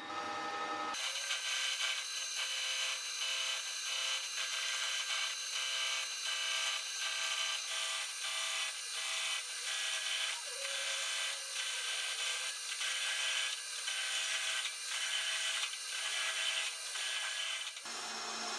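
Metal lathe turning the edge of a spinning disc blank, the cutting tool scraping its rim with a steady rasping and a regular pulse about twice a second. The sound starts about a second in and fades out near the end.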